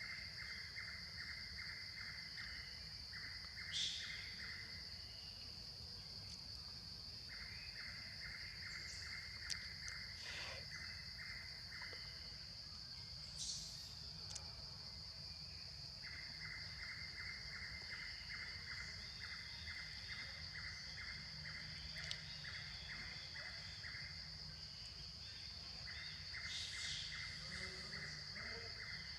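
Rural outdoor ambience of insects and birds. A steady high insect drone runs throughout, with several stretches of rapid, evenly repeated chirps lasting a few seconds each and a few brief bird calls.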